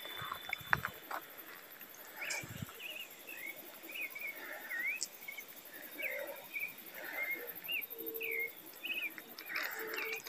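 A bird singing: a run of short, varied chirps and quick whistled glides, repeated over several seconds. There are a few soft clicks and a low thump near the start.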